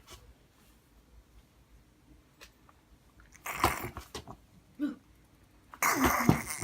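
A young child making weird tongue and mouth noises. A few short noisy bursts come about three and a half seconds in, a brief one a second later, and a longer, louder one near the end.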